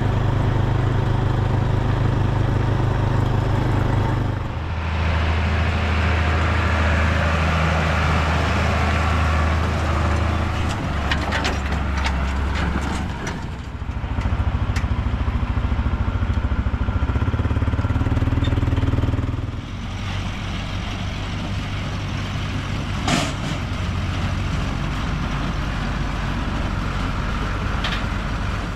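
Tractor engine running steadily, its note shifting a few times. There are a few short clicks in the middle and near the end.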